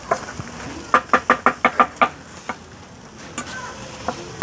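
A quick, even run of about seven sharp knocks about a second in, roughly six a second, with a few single knocks later.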